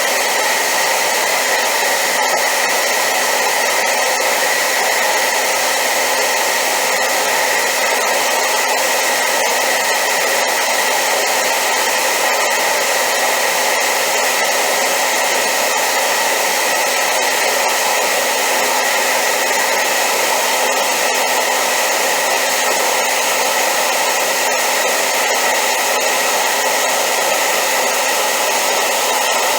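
Hair dryer running steadily on high power: a loud, unchanging rushing hiss with a faint steady whine in it.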